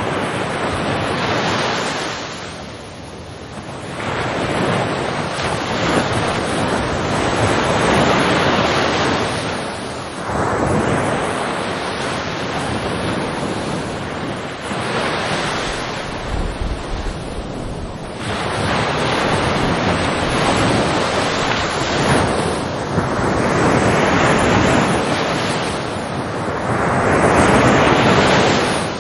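Ocean waves breaking and washing ashore, the surf rising and falling back in repeated surges every few seconds.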